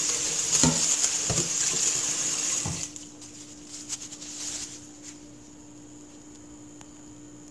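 Kitchen tap water running into a plastic pot of sweet rice while a gloved hand swishes the grains to wash them. The water stops about three seconds in, leaving only a faint steady hum.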